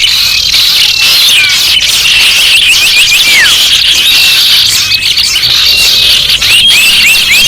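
Dense chorus of many small garden birds chirping and trilling at once, rapid repeated short curved notes, with one longer falling whistle about three seconds in.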